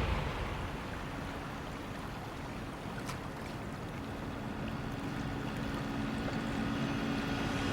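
Sea water washing and lapping, with a steady low hum that grows stronger about four seconds in.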